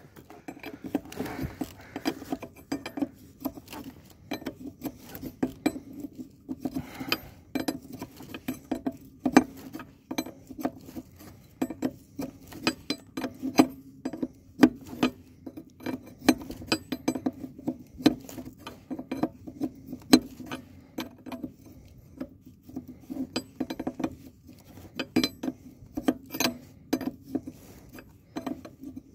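Hand tools and metal parts clinking and tapping irregularly during work on a trailer's disc brake, over a steady low hum.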